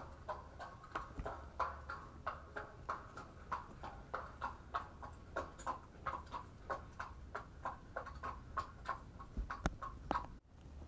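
Faint, rapid light clicks, several a second in an uneven rhythm, with a single low thump near the end.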